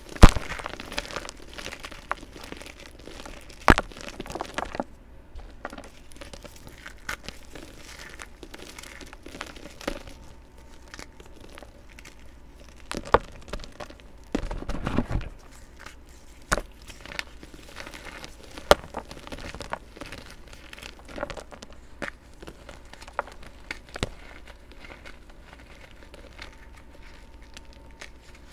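Hands crushing and crumbling chunks of compressed coloured powder: irregular soft crunching and crackling, with a few sharper snaps as pieces break apart.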